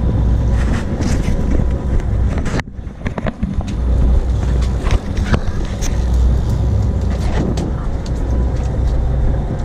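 Fishing boat's engine running with a steady low rumble under wind noise on the microphone, with scattered clicks and knocks; the sound dips sharply for a moment about two and a half seconds in.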